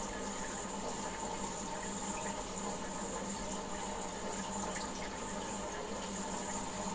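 Water in a goldfish tank running and trickling steadily, with a steady hum underneath.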